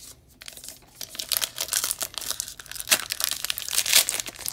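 Plastic wrapper of a baseball card pack crinkling and tearing as it is ripped open by hand, starting about a second in and loudest near the end.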